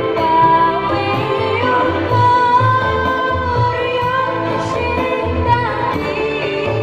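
A boy singing a Javanese pop (campursari-style) song live into a microphone, holding long notes with vibrato. Behind him a band of electric guitar, keyboard and hand drums plays a steady bass-and-drum pattern through the PA.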